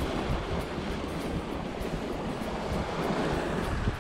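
Sea waves washing and breaking against a rocky shoreline, with wind buffeting the microphone in a gusty low rumble.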